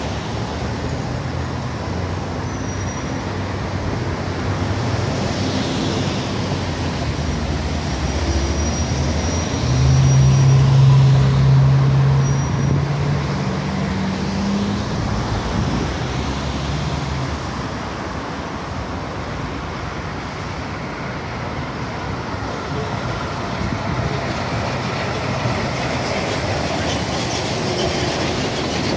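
Steady noise of passing street traffic, with one heavy vehicle passing loudest about ten seconds in, its low engine note rising before it fades.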